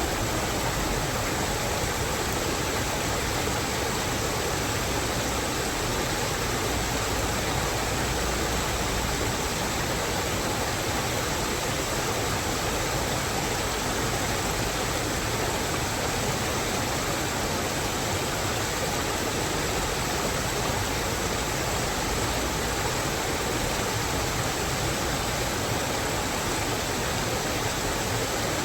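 Steady, unbroken rushing of water in a mountain forest, an even hiss with no distinct drops, splashes or calls.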